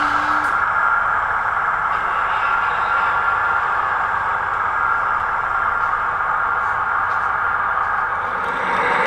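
00 gauge model diesel multiple unit running along the track, a steady mechanical running noise that holds level throughout.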